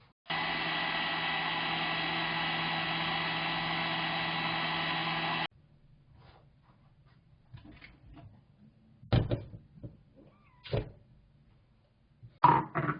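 An electric motor runs steadily for about five seconds, starting and stopping abruptly. Then come a few separate knocks and clinks.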